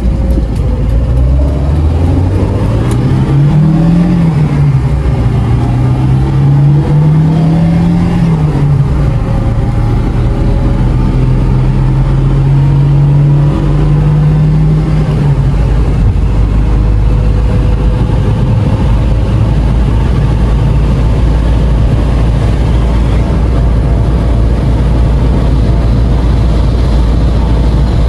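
A Lada 2101 Zhiguli's four-cylinder engine, heard from inside the cabin, accelerating through the gears. Its pitch climbs and drops twice as it is shifted up, then holds steady before settling into a quieter, even cruise with road noise.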